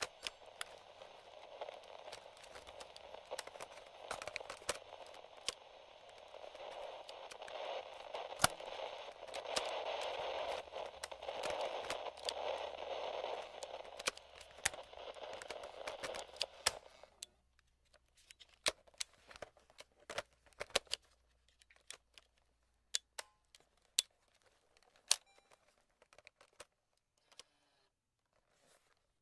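Static hiss from a vintage FM/AM cassette-corder radio between stations, swelling louder partway through and then cutting off abruptly about 17 seconds in. Sharp clicks and crackles are scattered through the hiss and continue sparsely after it stops.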